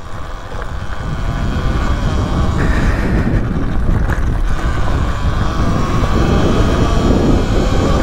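Wind buffeting the microphone, mixed with the tyre and drive noise of a Talaria Sting R MX4 electric dirt bike riding a dirt trail. It is a steady rush that grows louder over the first few seconds, then holds.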